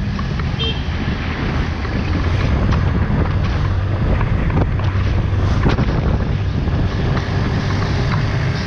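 Wind rushing and buffeting over the microphone of a camera held on a moving motor scooter, with the scooter's engine and road rumble running underneath.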